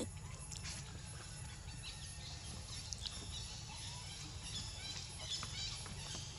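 Outdoor ambience: a steady low rumble with faint scattered high chirps and small clicks, and no single loud event.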